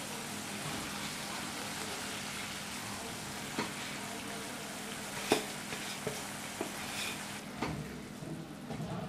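Water boiling in a nonstick pan with vermicelli in it, a steady bubbling hiss that thins out near the end as the boil settles. A few sharp clicks of a spatula knocking against the pan as it is stirred.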